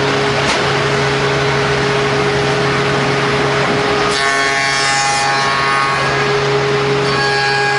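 CNC wood mortising machine running, its spindle humming steadily while the cutter cuts into a wooden workpiece with a rasping hiss. About four seconds in, the cutting noise eases and a cluster of higher steady tones from the machine comes through for a couple of seconds.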